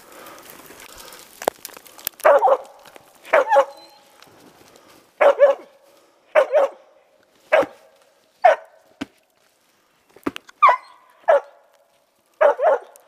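Hunting laika barking in single short barks about once a second, starting a couple of seconds in, sometimes two in quick succession. It is the steady barking a laika gives at game it has treed.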